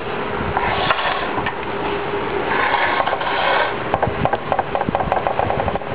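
Scraping and rubbing noises close to the microphone over a steady mechanical hum, with a quick run of clicks in the last couple of seconds.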